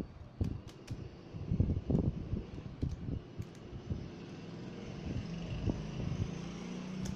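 Light clicks and soft knocks from a smartphone being handled and turned over in the hands. From about halfway a steady low hum builds underneath.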